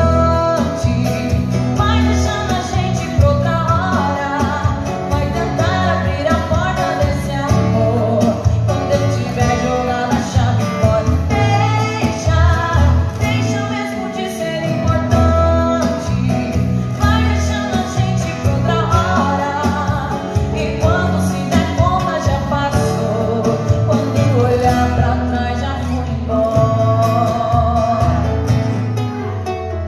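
A woman singing a sertanejo song into a microphone, accompanied by an acoustic guitar, with a wavering held note near the end.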